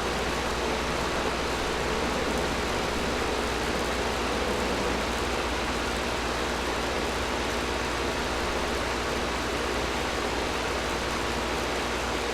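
Air conditioner running steadily: an even rush of blown air over a constant low hum.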